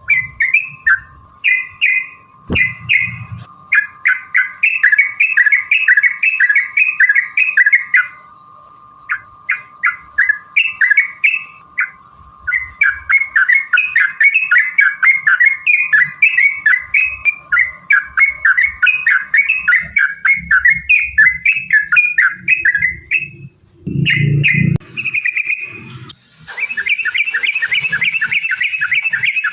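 Yellow-vented bulbuls (trucukan) singing long, rapid rolling runs of quick chattering notes (the 'ropel' song), broken by a few short pauses. A faint steady high tone runs under the first two-thirds.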